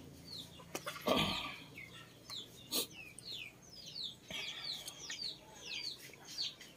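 Chickens clucking, with many short, high, falling chirps repeating throughout. A louder brief sound comes about a second in, with a few sharp clicks.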